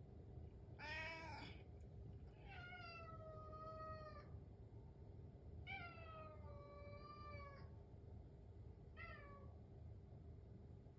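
A domestic cat meowing four times, asking for its breakfast: a short meow, two long drawn-out meows that fall in pitch, then a short one.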